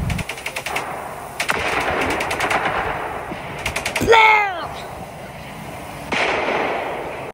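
Machine-gun fire sound effects in three rapid bursts, followed just after four seconds by a loud falling whine and, about six seconds in, a noisy blast that fades away.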